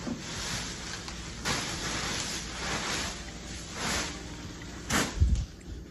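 Plastic wrapping crinkling and rustling in several bursts as it is pulled off a folding massage table, with a low thump about five seconds in.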